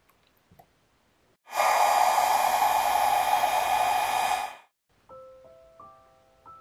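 Heat gun blowing steadily for about three seconds over the freshly poured resin, starting and cutting off abruptly. Soft bell-like background music notes begin near the end.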